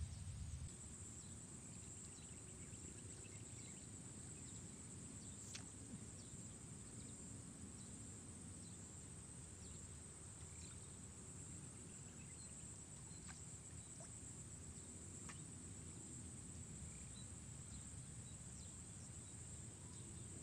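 Faint outdoor ambience: a steady high-pitched insect chorus over low background rumble, with a few faint clicks scattered through.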